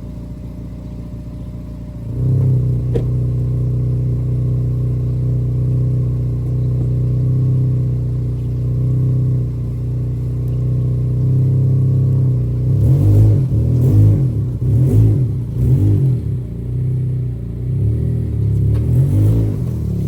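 Acura TSX's engine running as the car is driven. It gets louder about two seconds in, as if accelerating, then holds steady, with an uneven pulsing low rumble in the second half.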